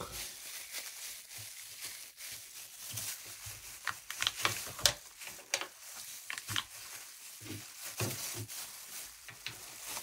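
Thin plastic gloves crinkling, with irregular small plastic clicks and taps as the washing machine's capped emergency drain hose is handled and pushed back into its holder. The clicks come thickest in the middle of the stretch.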